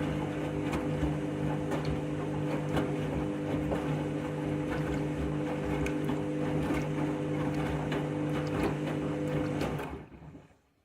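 Washing machine spinning fast on its final spin: a steady motor whine with several tones over a rumbling drum, with scattered knocks and rattles. The owner expected the spin to struggle from the way the drum was rotating. The sound falls away quickly near the end.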